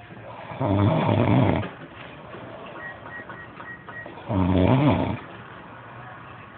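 Someone asleep and snoring: two long, loud snores about three and a half seconds apart, each lasting about a second.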